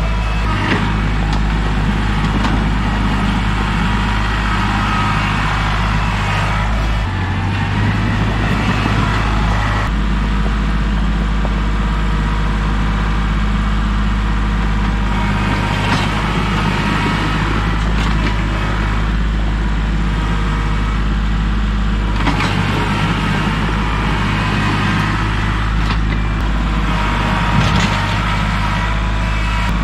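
Kubota L3301 tractor's three-cylinder diesel engine running steadily, its engine note shifting a few times as it works.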